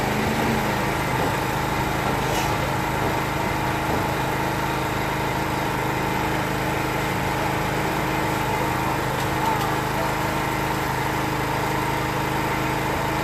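A small engine or motor running steadily at an even pitch.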